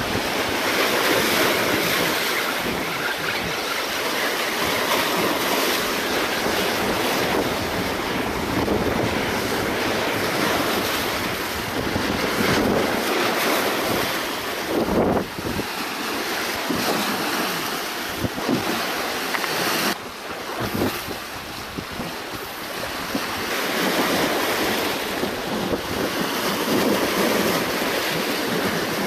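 Small sea waves washing and breaking against shoreline rocks, with wind buffeting the microphone; a continuous wash that eases briefly about twenty seconds in.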